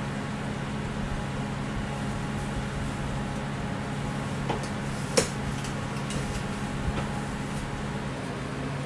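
Steady hum of kitchen equipment, with a few light clicks and one sharp clack about five seconds in as a commercial rotating waffle iron is shut on freshly poured batter.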